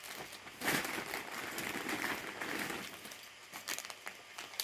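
Small packets of packaging crinkling and rustling as they are handled, with a few light clicks near the end.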